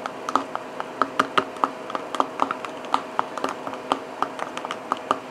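Fingers crumbling freeze-dried mayonnaise-substitute cubes into powder in a small plastic tub: irregular light clicks and crackles, several a second.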